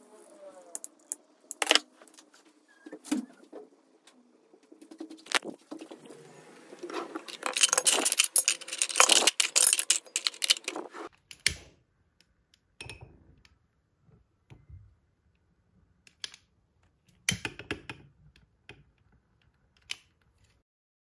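Metal kitchen utensils (knives, a grater and other tools in a drawer) clinking and clattering as they are rummaged through, with a dense burst of rattling about eight to ten seconds in and scattered single clicks and knocks.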